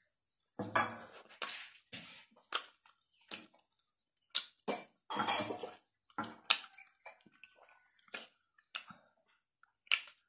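Close-up mouth sounds of a person eating rice and fried duck egg with the fingers: irregular wet smacks, clicks and chewing, a couple of times a second.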